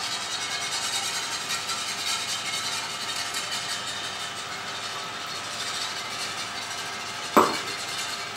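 Wire whisk beating a flour-and-water slurry into broth gravy in a nonstick frying pan: a steady, rapid sloshing and scraping. One sharp knock about seven seconds in.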